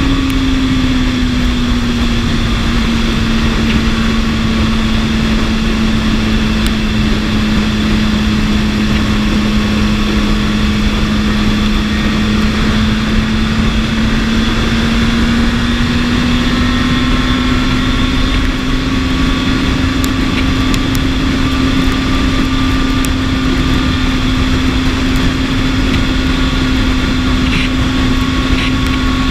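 BMW S1000RR's inline-four engine running at a steady cruise under a rushing noise of wind and road. Its pitch dips a little about a second in and climbs slightly midway.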